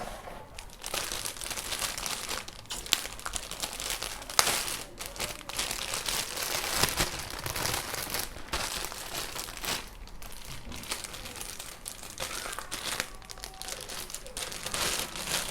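Packaging crinkling and rustling in irregular bursts as a microphone's XLR cable is unwrapped by hand.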